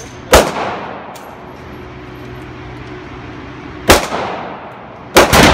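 Rifle shots fired in an indoor shooting range, each crack trailing off in a long echo: one shot about a third of a second in, another near four seconds, then two in quick succession near the end.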